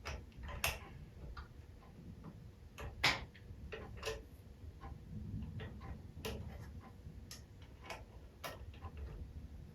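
Irregular light clicks and taps of a hand tool working a small fastener on a small aluminum compressed-air engine while it is loosened and turned. The loudest click comes about three seconds in.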